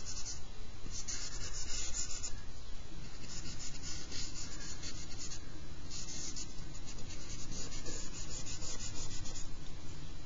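Charcoal stick scratching across drawing paper in shading strokes. It comes in dry, rasping stretches of a second or two, with short pauses between them.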